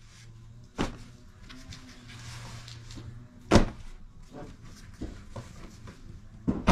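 Dull thumps and rustling as stacks of freshly baked Lezgi flatbread are set down on a cloth-covered pile. There are three thumps, the loudest about three and a half seconds in.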